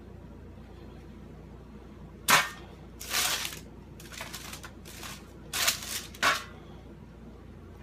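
Handling noise from working a hot lump of melted HDPE grocery-bag plastic over a paper-lined baking tray. It begins with a sharp snap about two seconds in, followed by several short crinkling crackles of the paper.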